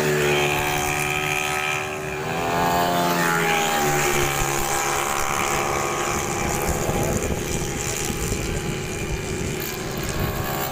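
Racing automatic scooters' small engines at high revs as several go through a corner, their overlapping whines rising and falling in pitch as they pass and accelerate away.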